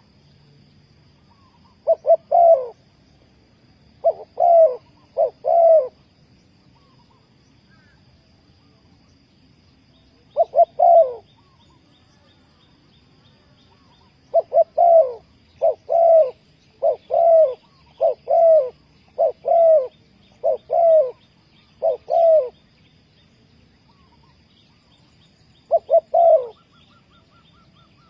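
Spotted dove cooing: repeated short phrases of a few soft, descending coos, given in bunches with pauses of several seconds between.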